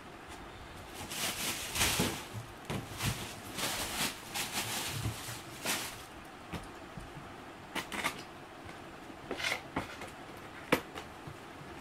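A cardboard box being handled and opened. A few seconds of rustling and scraping come first, then scattered taps and clicks, the sharpest one near the end.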